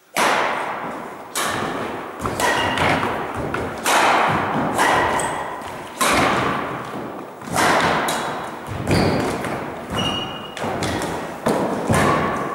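Badminton rally: rackets striking the shuttlecock about once a second, each sharp hit echoing in the gym, with short sneaker squeaks on the wooden floor between hits.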